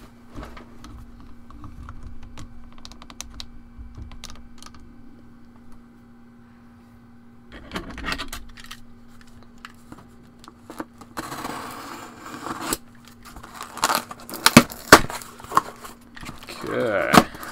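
Cardboard mailing box being handled and cut open: a long scraping tear of the packing tape about eleven seconds in, then sharp clicks and crackles of the cardboard and flaps near the end, over a faint steady hum.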